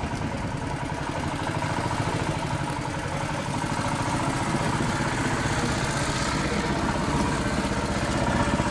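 A small wooden riverboat's engine running steadily as the boat moves along.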